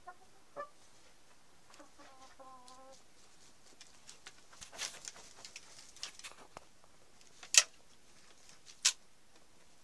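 Chickens clucking: a few short clucks, then a drawn-out call about two seconds in. After that come several sharp clicks, the loudest about seven and a half seconds in and another near the end.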